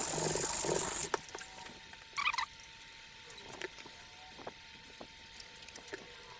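Steel knife blade rubbing on coarse 80-grit sandpaper wrapped around a strap, sanding strokes that stop abruptly about a second in. After that, faint light ticks and a brief high squeak about two seconds in.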